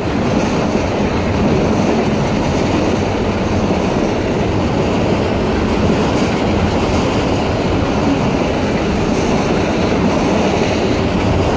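Long freight train of enclosed autorack cars rolling steadily past a grade crossing: the noise of the cars' wheels running on the rails.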